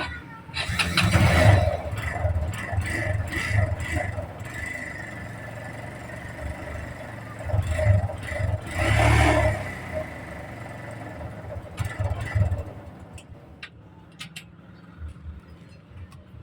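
An engine running and revving in surges, loudest about a second in, again around eight to nine seconds in and briefly near twelve seconds, then dropping away with a few sharp clicks.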